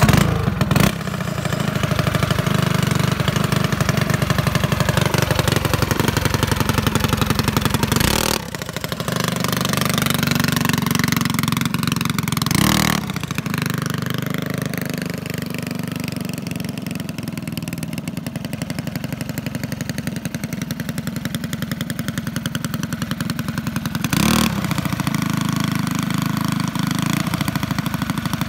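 Mini bike's small single-cylinder engine coming in suddenly at the start, then running loud and steady as the bike is ridden, with a few brief revs and changes in pitch.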